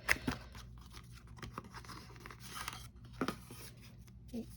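Paper and plastic packaging of a DVD box set being handled and rustled, with a few sharp clicks and crinkles, the strongest just after the start and about three seconds in.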